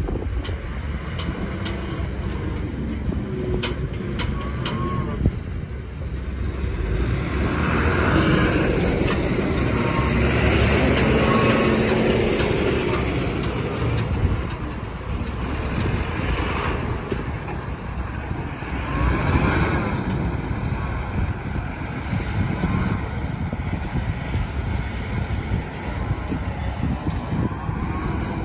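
Diesel engine of an Ashok Leyland tipper truck running as it moves slowly over a rough dirt track, growing louder for several seconds as it comes close, about a third of the way in.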